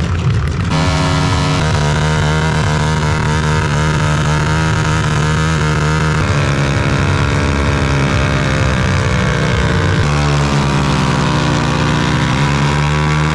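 Motorcycle engine running loudly with a steady low note, its revs wavering, then dipping and climbing back about ten seconds in.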